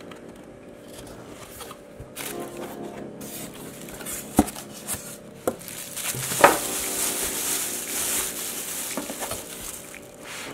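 Plastic wrapping crinkling and rustling as it is handled and pulled off a small plastic cooler box inside a cardboard carton, mostly in the second half, with a few knocks of handling before it. Background music plays steadily underneath.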